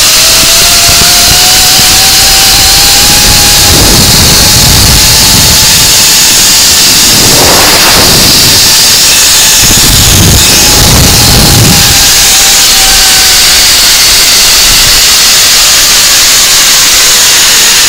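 Zip-line trolley running along the steel cable, a thin whine that rises in pitch as the ride gathers speed and then slowly falls as it slows, under loud rushing wind on the microphone.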